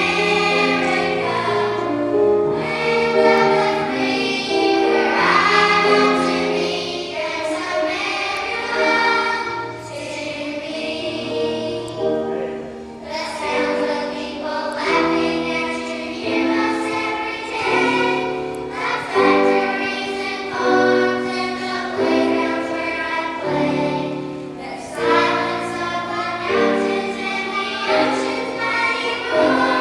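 Children's choir singing a patriotic song, with sustained low notes from an accompaniment beneath the voices.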